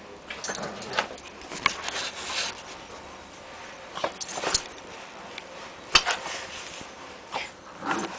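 Boston terrier–pug cross puppy scrabbling, lunging and pouncing on a puppy pad: scattered claw clicks, scuffs and rustling, with a sharp knock about six seconds in.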